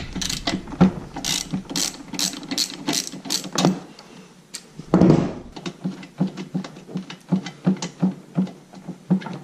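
Ratchet wrench clicking in quick strokes, about two to three clicks a second, as a spark plug is worked out of a small two-stroke engine, with one louder clunk about five seconds in.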